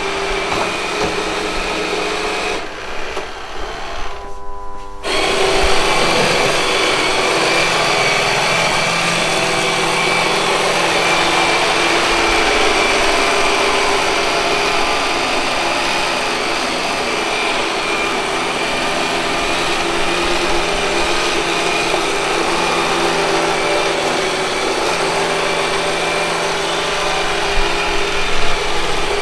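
Robot vacuum cleaner running, its motor and brushes giving a steady whir with several held tones. About three seconds in the sound thins and dips for a couple of seconds, then comes back louder and stays steady.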